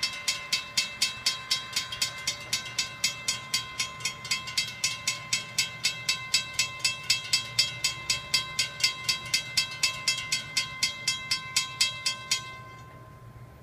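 Railroad grade-crossing warning bell ringing rapidly, about four strikes a second, as the crossing activates for an approaching train and the gate arms lower. It stops suddenly about twelve seconds in, once the gates are down.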